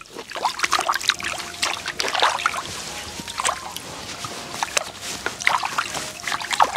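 Water sloshing and splashing in a steel basin as a whole plucked goose is washed by hand, with irregular small splashes and drips throughout.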